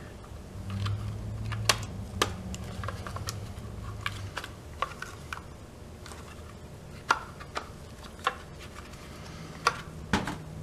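Plastic fuel pump housing parts from a 2013 Suzuki GSX-R600 being handled and fitted together on a metal workbench: scattered irregular clicks and taps, with a low hum for the first few seconds.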